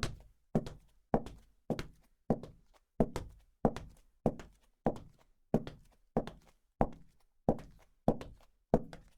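High-heeled shoes walking at a steady, unhurried pace on a hard floor: sharp heel clicks a little under two a second, each with a short echoing tail.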